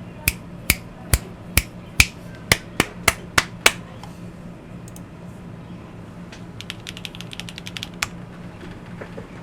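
Keystrokes on a plateless MK870 mechanical keyboard with JWK Black linear switches with cream stems: nine loud, separate presses about half a second apart, then a quick run of about a dozen softer keystrokes near the end and one louder press.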